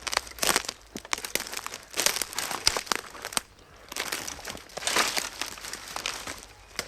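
Footsteps walking through undergrowth, vegetation crunching underfoot in irregular clusters of small sharp cracks with each step.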